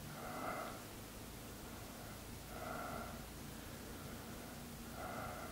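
Soft, slow breathing of a person lying at rest, three quiet breaths about two and a half seconds apart.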